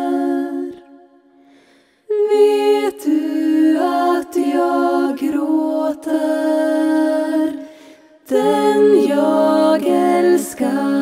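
Female vocal group singing wordless close harmony a cappella in long held chords. The chord fades out in the first second, and after a short silence the voices come back in about two seconds in. There is another brief break just before eight seconds, then the voices return.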